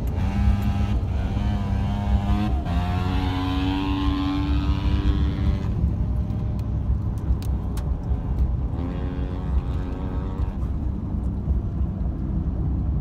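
Vehicle noise inside a moving pickup truck cab: a steady, heavy low engine and road rumble. An engine tone climbs in pitch a few seconds in, falls away, and rises again near the end.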